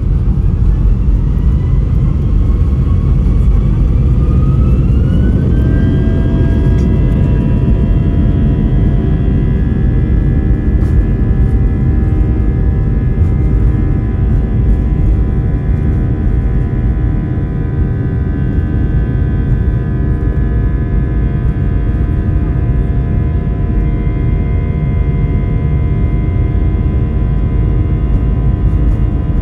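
Airbus A320 jet engines spooling up to takeoff thrust: a whine that rises in pitch over the first six seconds or so, then holds steady over a loud, even rumble.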